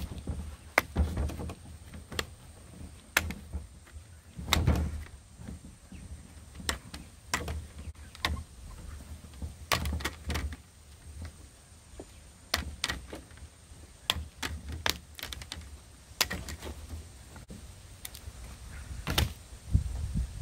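Sharp, irregular plastic clicks and snaps as the snap-in screen bezel of a Dell Inspiron 15 7567 is pried off the lid by hand and its retaining tabs pop free. Dull knocks and thumps come in between from the laptop being handled on the table.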